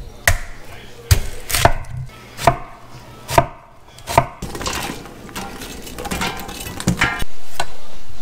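Chef's knife chopping an onion and then potatoes on a wooden end-grain cutting board: single sharp knife strikes roughly a second apart, then quicker, closer cuts. Near the end a louder steady noise comes in.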